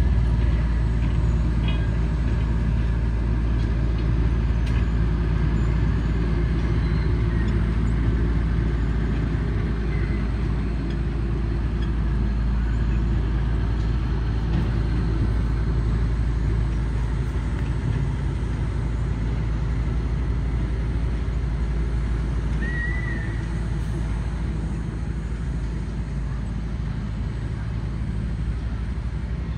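Small diesel locomotive's engine running steadily at low speed as the train moves along, its drone slowly fading as it pulls away.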